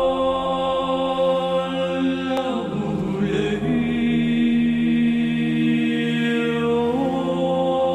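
Slow choral chant music: long held vocal notes, falling in pitch about two and a half seconds in and rising again near the end.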